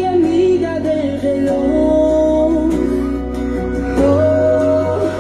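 Music: a song with a singing voice on long, gliding notes over sustained bass notes that shift about every two and a half seconds.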